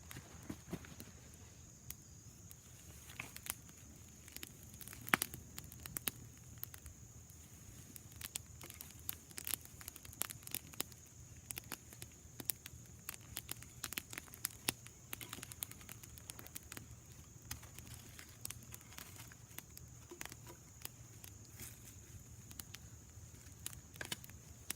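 Small campfire crackling, with many sharp irregular pops and snaps.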